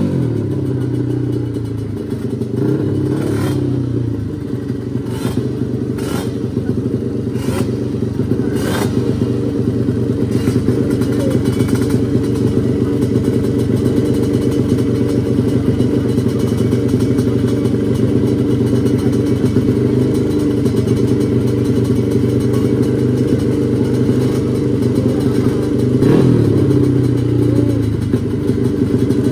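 The engine of a 350cc free-for-all class drag-racing motorcycle, held at steady high revs on the start line. A few sharp cracks come in the first several seconds, and near the end the revs dip and rise again.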